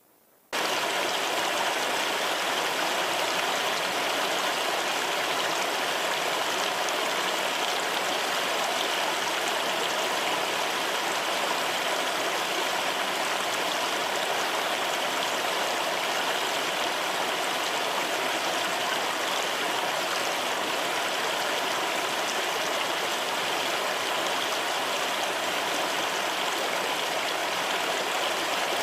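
A stream of flowing water rushing steadily, starting abruptly about half a second in.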